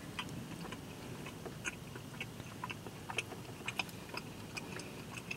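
A person chewing a mouthful of soft breadstick, heard as faint, irregular small clicks and smacks of the mouth.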